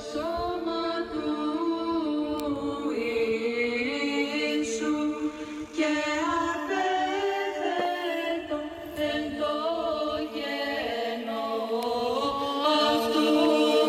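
Unaccompanied religious chanting: voices sing long, gliding notes without instruments.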